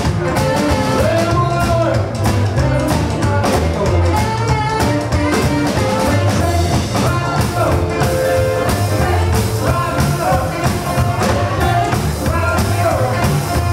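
Live rock and roll band playing with a steady drum beat: male lead vocals and tenor-range saxophone over piano, electric guitar, upright bass and drums.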